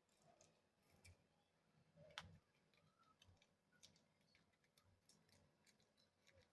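Near silence, with faint scattered ticks and clicks and one sharper click about two seconds in.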